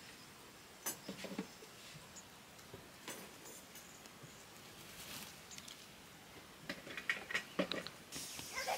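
Free-range chickens, a rooster and a hen, foraging and giving a few faint, short clucks, with a cluster of them near the end.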